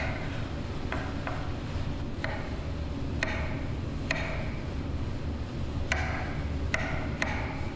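A chef's knife cutting strawberries on a wooden cutting board: about nine sharp knocks of the blade meeting the board at an uneven pace, over a steady low background hum.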